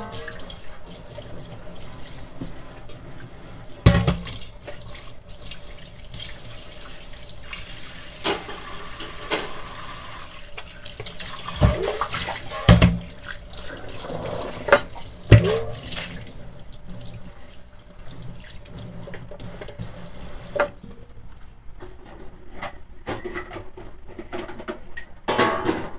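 Tap water running steadily into a sink, with a few sharp knocks, then shut off abruptly about three-quarters of the way through.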